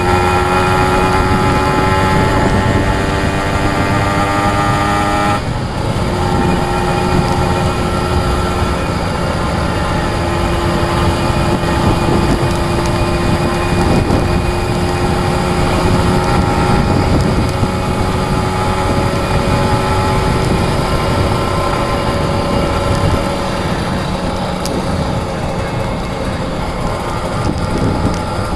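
Kawasaki Ninja 150 RR's single-cylinder two-stroke engine running under way, its pitch easing slowly down over the first few seconds. About five seconds in the sound dips briefly, then the engine holds a steady pitch.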